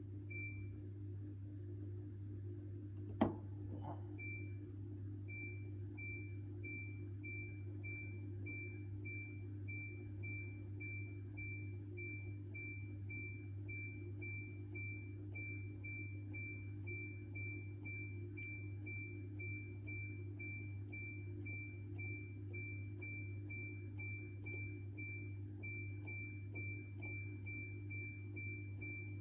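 Hoover H-Wash 600 washing machine's control panel beeping: a short high beep repeated evenly about twice a second, over a steady low hum, with a single sharp click about three seconds in.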